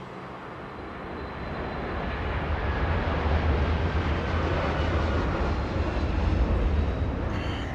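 Jet aircraft engines rumbling with a faint high whine, swelling over the first few seconds and then holding steady.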